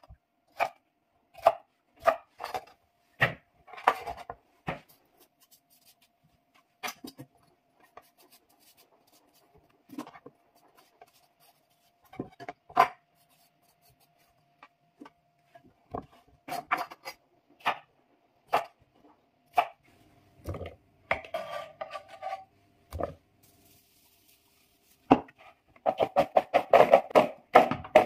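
Kitchen knife cutting cucumbers on a heavy wooden cutting board, with single sharp knocks of the blade on the board a second or more apart. Near the end comes a fast run of chops.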